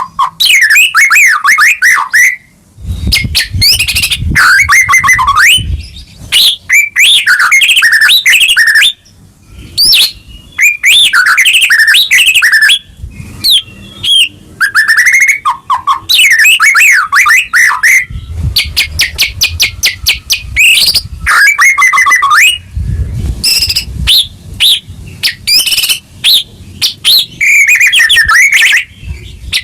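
White-rumped shama singing loudly in full 'gacor' song: a near-continuous stream of varied phrases, with rich whistled glides, rapid runs of repeated notes and trills, and short breaks between phrases.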